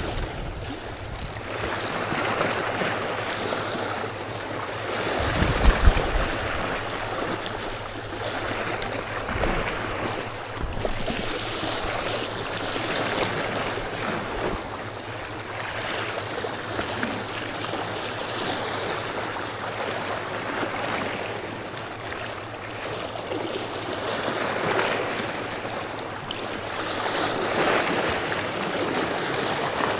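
Small sea waves washing and splashing over shoreline rocks, swelling and easing every few seconds. A brief low thump about five and a half seconds in.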